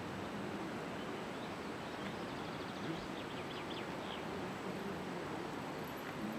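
Steady outdoor background noise, with a small bird chirping a quick run of high notes from about two seconds in to past the middle.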